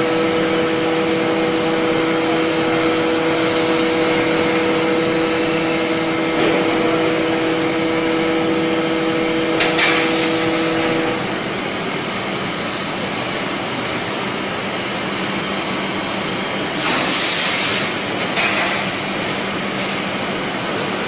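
Steady machinery noise from a particle board production line, with a steady two-note hum that stops about halfway through. Short bursts of hiss come twice, once near the middle and again later.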